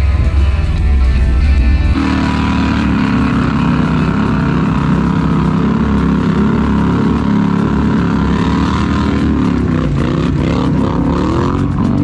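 ATV engine running as the machine pushes through deep water, churning up a wake; music plays over it. The engine note shifts suddenly about two seconds in and changes pitch near the end.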